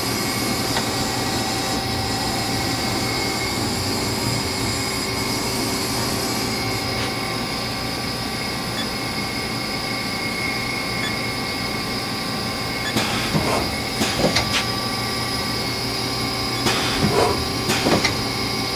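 Haas HL-2 CNC lathe running with a steady hum and a high whine while its X-axis cross slide and tool turret are jogged along the ways. Clusters of short clicking and rasping noise come in about two-thirds of the way through and again near the end.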